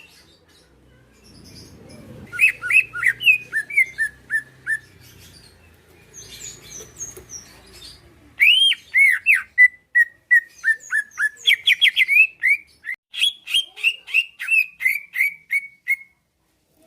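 Green leafbird (cucak ijo) in full song, giving two runs of quick, loud whistled notes, each note sliding downward. The second run is the longer one. Fainter high chirps come between the runs, and the song stops a second before the end.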